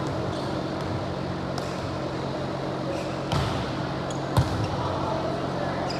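Volleyball being struck in a gym, over a steady low hum and background noise. A dull thud comes a little over three seconds in, and a sharper smack about a second later.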